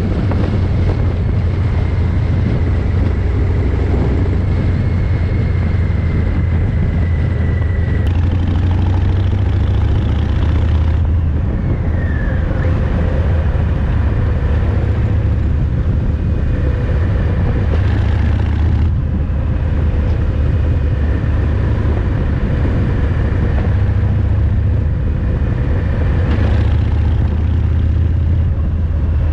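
Harley-Davidson Fat Boy 114's Milwaukee-Eight V-twin running through Vance & Hines exhaust while riding, a steady heavy low rumble with road and wind noise. The recording is overdriven from too high a mic gain, so the sound is distorted and smeared.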